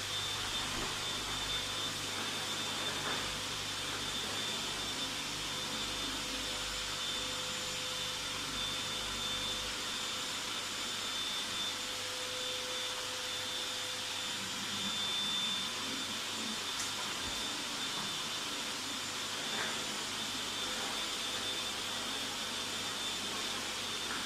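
Stick vacuum cleaner running steadily over a floor, its motor giving a constant high whine.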